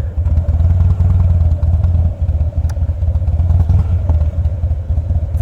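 2007 Harley-Davidson Softail Custom's V-twin engine running steadily while the bike is ridden, a low pulsing exhaust note.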